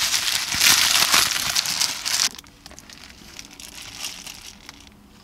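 Paper food wrapping crinkling and rustling, loud and dense for about two seconds, then dropping to soft, scattered rustles.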